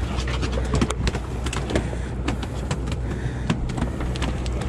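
Boat engine running steadily, with many sharp, irregular knocks and clatters over it.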